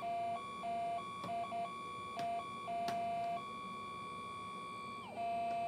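Minelab GPX 4500 metal detector's audio sounding a metal target as a small metal can is banged against its coil: choppy electronic beeps that jump between a lower and a higher pitch, then one steady tone that glides down near the end. A few sharp knocks of the can on the coil come through about a second to three seconds in.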